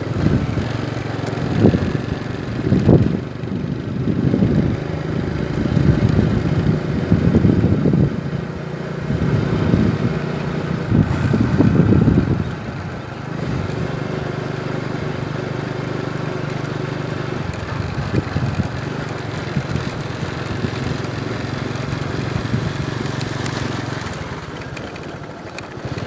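A vehicle's engine runs steadily while driving over a rough dirt road bed. Loud, irregular low rumbling rides over it for about the first half, after which the engine note is heard more evenly.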